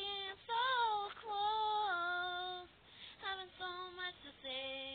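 A woman singing solo and unaccompanied: several phrases of held notes with gliding pitch, breaking off and starting again.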